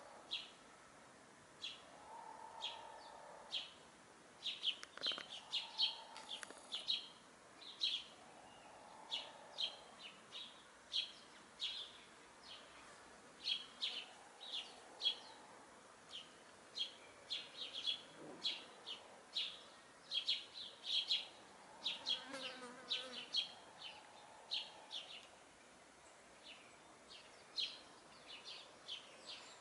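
Small birds chirping throughout in short, high notes that come in irregular clusters. Now and then there is a softer, lower clucking from hens.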